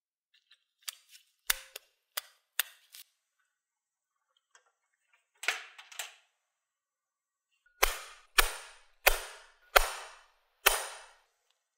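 A hammer striking a hand impact driver five times, the blows well under a second apart, each a sharp metallic strike with a short ring, to break loose a rusted screw on old aviation snips. A few lighter metallic clicks come before the blows.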